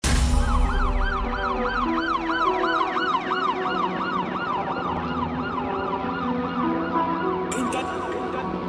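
A fast warbling siren effect, about four rising-and-falling sweeps a second, over held low synth notes that step in pitch: the intro of a music track, with cymbal-like hiss coming in near the end.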